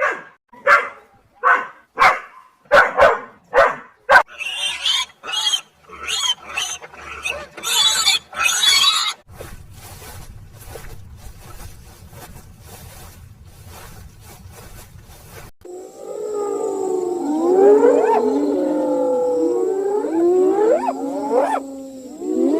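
A run of different animal calls: a series of short, sharp calls in quick succession, then higher chattering calls, a quiet stretch, and from about two-thirds of the way in many overlapping calls that slide up and down in pitch.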